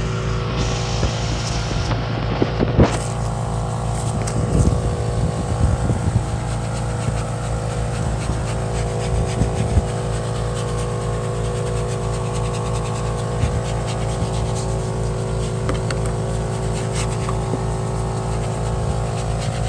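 A motor engine runs steadily, with an even low pulse under a hum of several fixed tones. Over it, a detailing brush scrubbing the door panel gives short scuffs and knocks, most of them in the first half.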